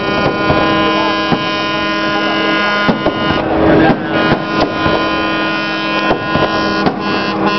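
Fireworks exploding in quick, uneven succession over a sustained chorus of horns blaring at several pitches.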